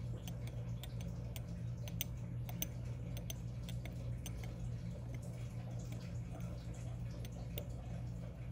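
Montblanc fountain pen nib writing on paper: faint, irregular small ticks and light scratches as the strokes are made, over a steady low hum.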